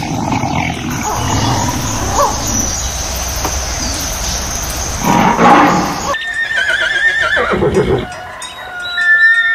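A lion's low, rough roaring, loudest about five seconds in. Then, after an abrupt cut about six seconds in, horses neighing: two shrill, wavering whinnies.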